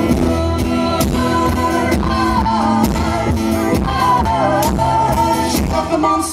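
Live band playing the closing bars of a pop-rock song: a steady drum beat under guitars, with a melody line weaving over it.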